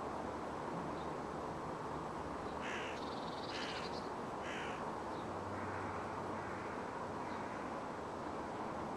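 A crow cawing three times, about a second apart, over a steady hum of distant city noise.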